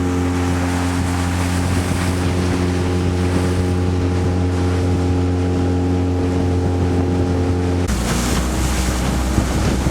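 Honda BF20 four-stroke outboard motor running steadily under way, with wind and wave noise. About eight seconds in the engine note changes abruptly to a lower one and the wind noise on the microphone grows.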